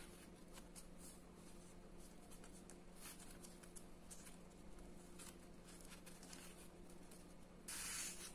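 Faint handling noises of a Leatherman Surge multitool and its black bit-holder sleeve: light taps and rustles, then near the end a short, louder scrape as the metal bit extender slides out of the sleeve.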